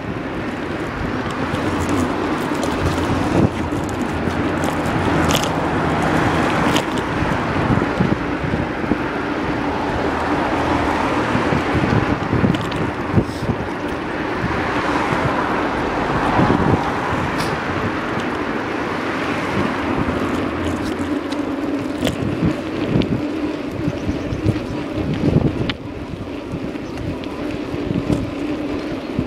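Wind buffeting the microphone of a phone carried on a moving bicycle, with road traffic passing alongside. Short clicks and knocks break in now and then.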